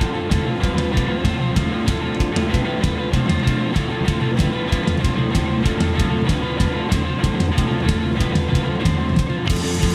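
Rock band playing live: electric guitar and drum kit keep a fast, steady beat. The cymbals brighten just before the end.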